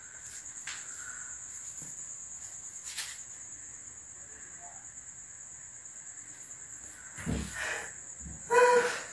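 A cricket trilling steadily at a high pitch, with a few light knocks, a low thump about seven seconds in, and a brief voice near the end.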